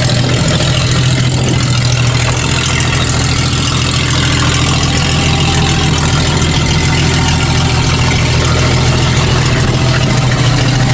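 Jeep Grand Cherokee engine running steadily at an even speed, a constant low hum.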